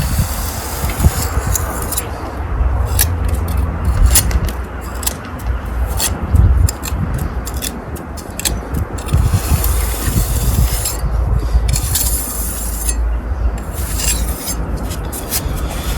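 Irregular short scrapes of a pointing tool across fresh mortar joints and brick faces, over a steady low wind rumble on the microphone.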